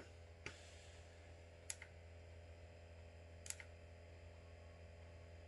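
Near silence: room tone with a steady low hum, broken by three faint short clicks spread over a few seconds.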